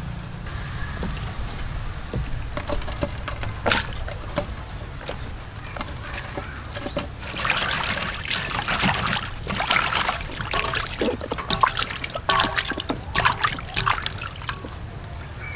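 Hands swishing bell peppers and green peppercorns in a stainless steel bowl of water, with splashing and sloshing that gets louder and busier in the second half. A single sharp click about four seconds in.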